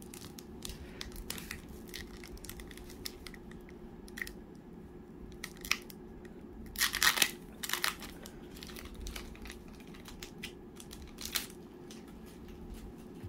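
Foil wrapper of a Topps Gypsy Queen baseball card pack being torn open and crinkled by hand, with scattered crackles and a louder burst of crinkling about seven seconds in.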